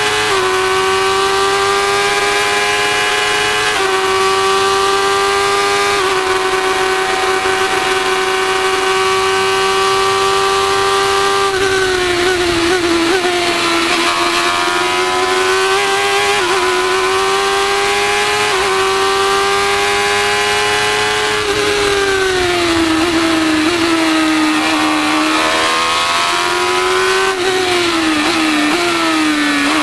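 Formula 1000 race car's 1000 cc motorcycle engine at high revs under full throttle, with brief steps in pitch at each upshift. About halfway through and again near the end the pitch falls through braking and downshifts for corners, then climbs again on the way out.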